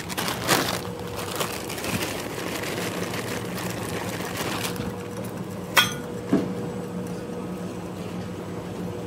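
Emery Thompson 12-quart batch freezer running steadily at raised speed as it pushes out the last of the ice cream. A plastic bag rustles over the first few seconds, and two sharp clicks come a little past the middle.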